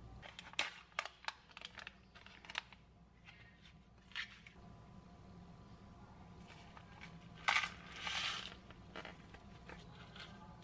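A plastic Chobani Flip yogurt cup being opened and handled, with a quick run of sharp crinkles and clicks. A louder clack comes about seven and a half seconds in, then a brief rattle as the crunchy almond and waffle-cone toppings are tipped from the side compartment into the yogurt, and a metal spoon clinks against the cup near the end.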